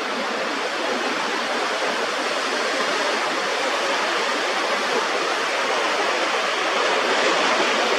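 Steady rushing of ocean surf washing over coastal rocks, swelling slightly near the end.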